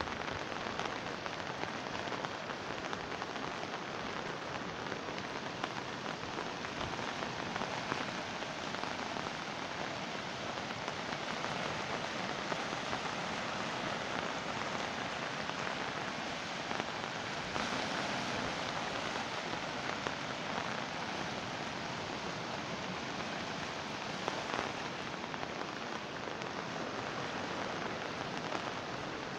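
Steady rush of a swollen, muddy river in flood, fast water churning over itself.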